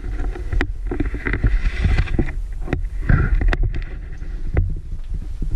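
Footsteps and scuffs on stone and rubble while climbing down inside a ruined stone tower, with irregular knocks and a steady low rumble on the microphone.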